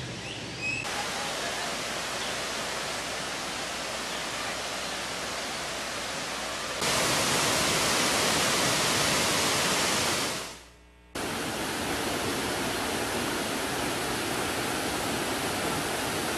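Rushing water of a waterfall, a steady dense roar in several edited takes. It gets abruptly louder about seven seconds in, fades away briefly near eleven seconds, then cuts straight back in.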